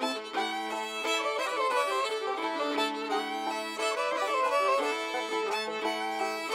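Background music: a fiddle tune with quick runs of notes over steady held notes.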